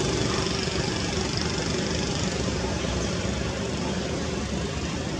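Steady engine noise of a motor vehicle running close by, slowly fading.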